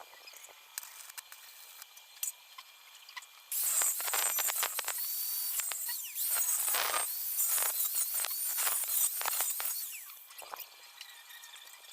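Arc welding with a portable welding machine: the arc strikes about three and a half seconds in and crackles and hisses, breaks off briefly, then runs again until it stops near the end.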